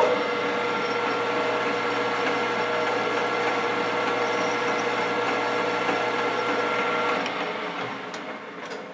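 Metal lathe starting up suddenly and running at speed with a steady mechanical whine of several fixed tones, while a hand tool is held against the spinning aluminium part. About seven seconds in the motor is switched off and the spindle winds down.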